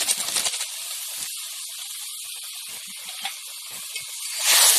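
Spiced water heating in a kadai over an open fire, hissing steadily as it nears the boil; the hiss swells and gets louder near the end.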